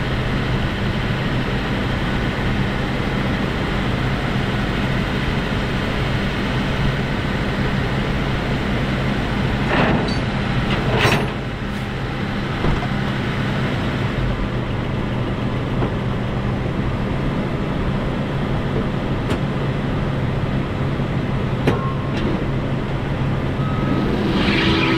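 Hino rollback tow truck's diesel engine running steadily, working the winch as a van is let down the tilted bed. Two sharp knocks come about ten seconds in, and a pitched tone starts near the end.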